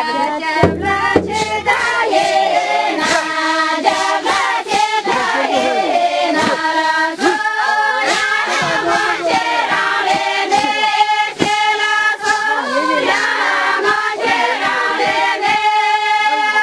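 A group of voices singing a Tamang syabru dance song together, a chant-like tune carried in unison, with short sharp knocks scattered through it.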